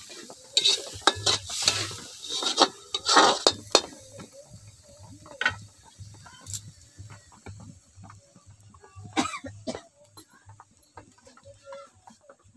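A metal spoon scraping and clinking against an aluminium wok while stirring a thick masala paste, loud and busy for the first few seconds, then fewer, quieter clicks.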